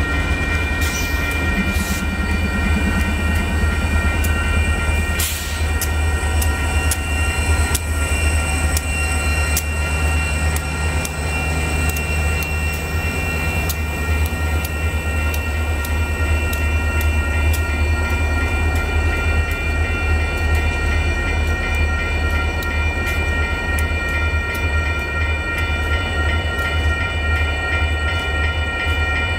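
A slow freight train passing a grade crossing: diesel locomotives, including a former UP SD40-2, rumble by at low speed, then covered hopper cars roll past. The crossing bell keeps up a steady, evenly repeating ring over the rumble.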